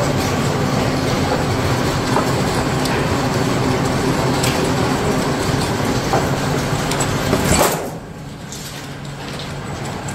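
Electric motor and gearbox driving a long heavy roller chain on a workshop machine, running with a steady hum and scattered clicks. The level drops sharply about eight seconds in.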